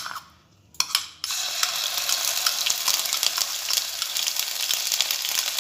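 Ginger-garlic paste dropped into hot oil in a nonstick pan and frying. A few clicks in the first second, then from about a second in a steady crackling sizzle.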